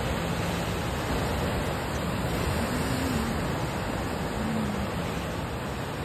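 Ocean surf breaking and washing over rocks as a steady, unbroken rushing noise.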